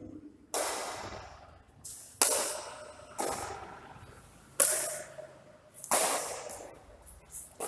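Badminton rackets striking a shuttlecock in a rally, about six sharp hits roughly a second or so apart, some louder and some fainter, each trailing off in the echo of a large hall.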